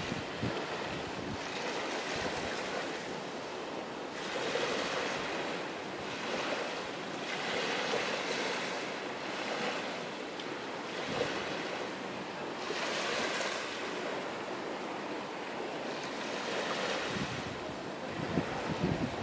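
Small waves breaking and washing up a sandy beach, the surf swelling and easing every couple of seconds, with wind gusting on the microphone near the end.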